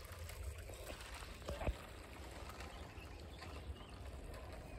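Faint outdoor background with a low wind rumble on the microphone, and a single short thump about one and a half seconds in.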